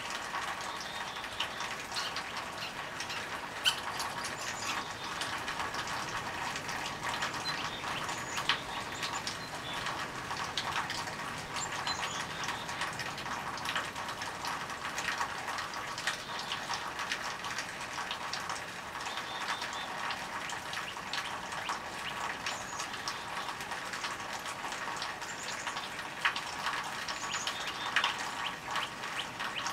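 Steady outdoor hiss with scattered sharp clicks and a few faint, high bird-like chirps.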